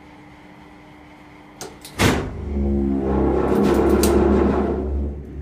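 Old wharf crane's electric drive, fitted with vintage Crompton Parkinson gear: a steady low hum, then a click and a loud clunk about two seconds in as the gear engages. The motor then runs with a deep hum for about three seconds, easing off near the end.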